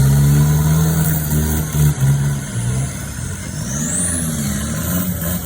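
Off-road 4x4 race vehicle's engine held at high revs, dropping off about two seconds in, then revving up and down unevenly at lower speed.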